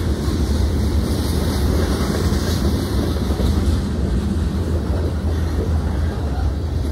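Freight train of covered hopper cars rolling past a grade crossing: a steady, continuous rumble of wheels on rails.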